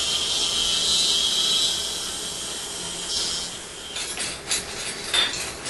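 Dental handpiece running a bur against the stay plate's tooth to adjust its incisal edge, a steady high-pitched hiss-whine that stops about three and a half seconds in. Light clicks and clinks of instruments follow near the end.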